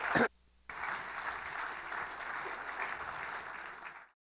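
Audience applauding after a talk. The clapping drops out for a moment just under a second in, then runs on and cuts off suddenly near the end.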